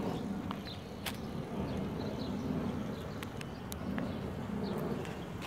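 Outdoor background: a low, uneven rumble with scattered short bird chirps and a few faint clicks.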